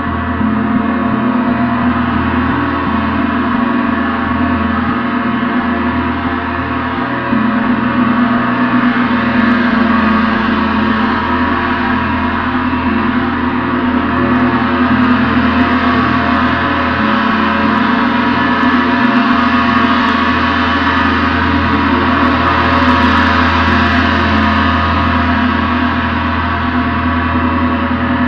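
Gong ringing continuously, an energetic, dense wash of many overlapping tones with no single strike standing out. It grows brighter a little after two-thirds of the way through.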